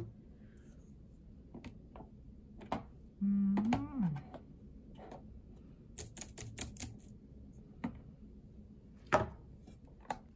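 Plastic keys of an OA folding Bluetooth keyboard clacking: scattered single presses, then a quick run of typing about six seconds in, and one sharp, louder click a little after nine seconds from the folding plastic cover stand. A short hummed voice sound rises in pitch about a third of the way in.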